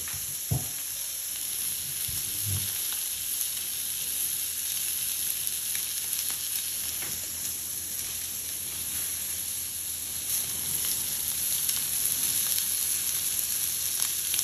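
Steak and salted butter sizzling steadily in a frying pan over turned-down heat, the sizzle growing a little louder near the end. A sharp knock about half a second in and a softer one about two and a half seconds in.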